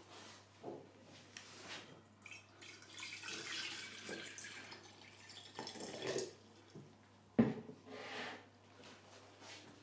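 Hands setting up a small glass tank with slate stones and gravel: scattered clinks, scrapes and knocks, a stretch of rustling hiss a few seconds in, and one sharp knock about seven seconds in. A faint steady low hum runs underneath.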